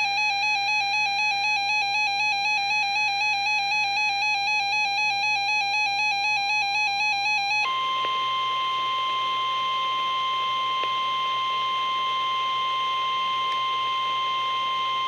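A weather radio receiver's electronic alert alarm sounds for about seven and a half seconds as a fast, pulsing, buzzy tone. It then cuts over to the steady, single-pitch 1050 Hz NOAA Weather Radio warning alarm tone, the attention signal that comes before a broadcast alert message.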